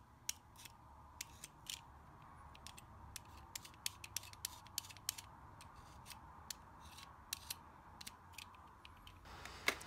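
Knife blade scraping the plastic coating of a Roland 80017A voice chip in many short, irregular, quiet strokes, scoring the casing so acetone can soak into it.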